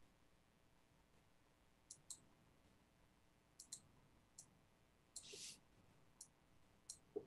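Faint, scattered clicks of a computer mouse and keyboard, in small groups, with a brief soft hiss a little past the middle.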